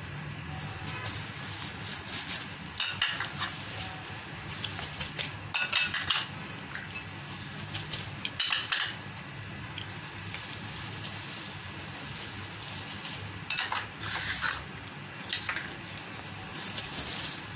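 Spoon clinking and scraping against a glass mixing bowl as spices and paste are added: short clatters a few seconds apart, about six or seven in all.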